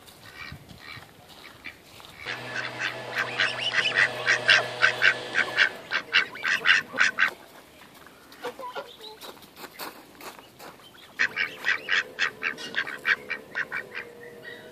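Ducks and Canada geese calling while being hand-fed: two runs of rapid, repeated calls at about four a second, the first starting about two seconds in and lasting around five seconds, the second starting about eleven seconds in.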